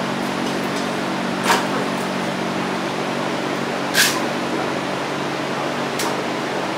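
Steady mechanical hum of a running motor or fan, with three short sharp knocks: about a second and a half in, the loudest at about four seconds, and a fainter one at about six seconds.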